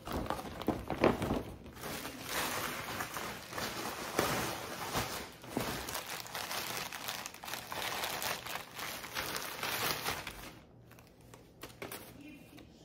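Plastic mailer bag and a gift bag rustling and crinkling as they are handled: a shirt is pushed into the gift bag, then the plastic mailer is pulled open and a shirt drawn out. The rustling dies down about ten seconds in.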